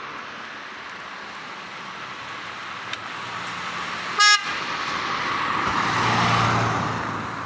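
A single short vehicle horn toot about four seconds in, followed by a vehicle driving past, its noise building and then easing off near the end.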